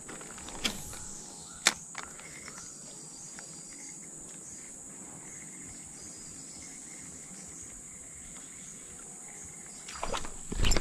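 Steady high-pitched chirring of insects, with two sharp clicks in the first two seconds and a louder burst of noise near the end.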